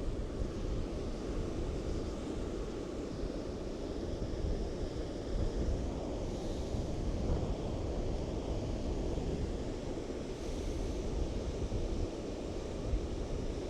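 Strong wind rumbling on the camera's onboard microphone, rising and falling in gusts, with surf washing on the beach underneath.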